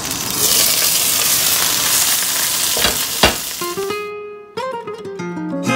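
Chicken breast frying in oil in a lidded pan: a steady hiss of sizzling, with two sharp knocks about three seconds in. The sizzle cuts off at about four seconds and plucked guitar music begins.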